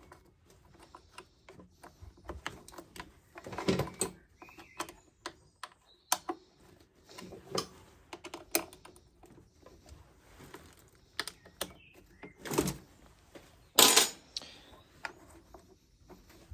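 Irregular clicks, taps and a few louder knocks of hand tools and hard plastic parts being handled while working on a petrol leaf blower.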